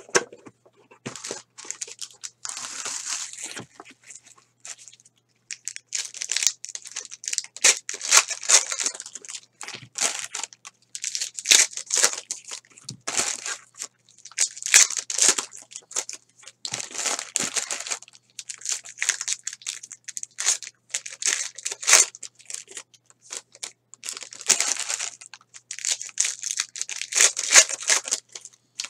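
Foil wrappers of Panini Elite Extra Edition trading-card packs being torn open and crinkled by hand, in repeated bursts of crackling with short pauses between.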